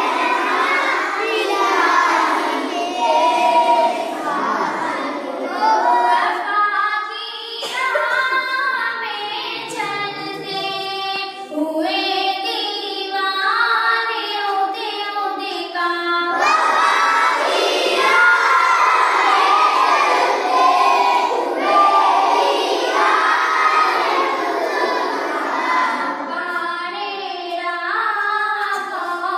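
A group of children singing an Urdu hamad together in unison, many young voices at once.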